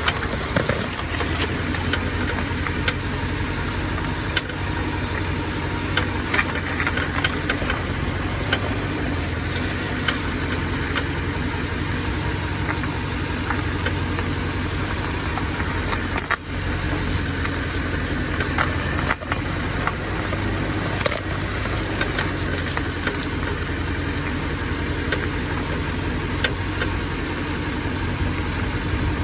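BMW F16 V8 running at low speed, with scattered short creaks and clicks from the right front brake. The creaking comes from the Brembo GT kit brake pads shifting against a worn rotor that has formed a lip at its edge.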